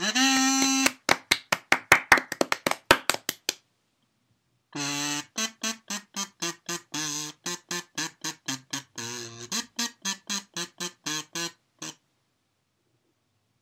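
Background music of short, quick keyboard notes: one held note at the start, then a fast run of staccato notes. After a pause of about a second, a second run of quick notes plays and stops about twelve seconds in.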